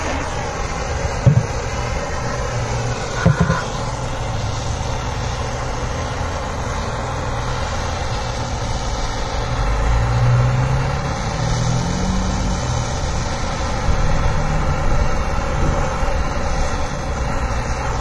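Handheld propane torch burning with a steady hiss and rumble, its flame held against a wooden board to char the surface. Two brief knocks come about one and three seconds in.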